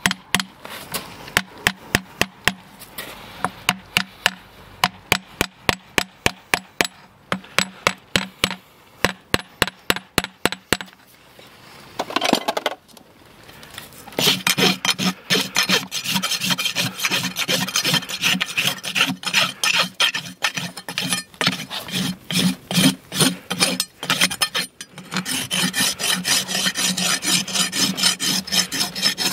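A run of quick, sharp, evenly spaced taps, two or three a second, for the first ten seconds or so; then, after a short pause, a farrier's rasp filing the wall of a freshly shod horse's hoof in fast continuous back-and-forth strokes to finish the shoeing.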